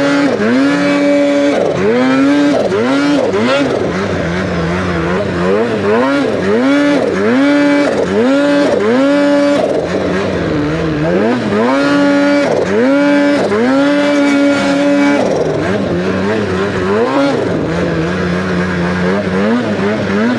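Turbocharged two-stroke snowmobile engine (2023 Polaris RMK Khaos Boost with an SLP exhaust can) being ridden through deep snow, the rider blipping the throttle over and over so the pitch climbs and drops about once a second, with a few longer held pulls at high revs and a steadier lower drone near the end.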